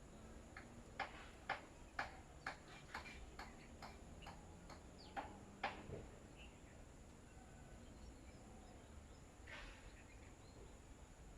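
Birds pecking at scattered rice: a run of sharp taps, about two a second, that stop about six seconds in, with one short rustle near the end.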